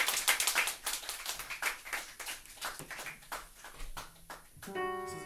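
Small audience applauding, the clapping thinning out and fading away. Near the end an instrument starts a held chord.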